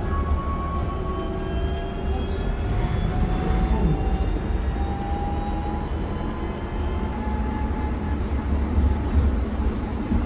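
Interior ride sound of a MAN Lion's City 18 E battery-electric articulated bus under way: a steady low rumble from road and tyres with the electric drive's whine on top, several thin tones slowly gliding up and down in pitch as the speed changes.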